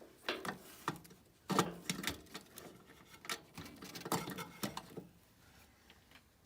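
Irregular clicks, taps and rustling of a furnace's condensate float switch and its wiring being handled, as the switch is checked for which circuit it breaks. The loudest handling comes about a second and a half in, and it settles down near the end.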